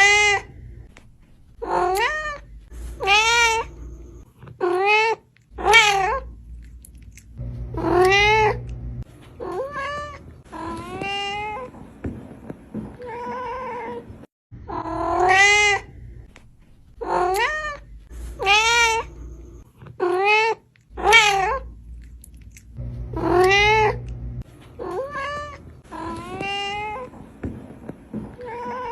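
Domestic cat meowing over and over, about twenty long, drawn-out meows, each under a second, with short pauses between, some of them loud.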